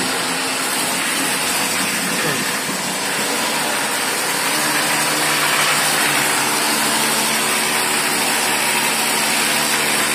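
A motor running loud and steady, a hiss with a steady hum beneath it.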